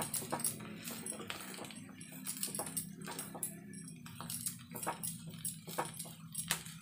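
Wooden spatula stirring and pressing mashed potatoes in a nonstick frying pan, knocking and scraping against the pan in many short, irregular clicks, over a steady low hum.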